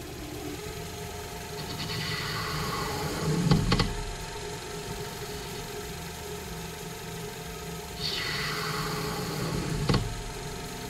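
A cue lathe's motor running steadily while its cutting tool trims a Horo break tip on the spinning cue shaft: two cutting passes, each a hissing swell of about two seconds that ends in a brief knock, one about three and a half seconds in and one near the end.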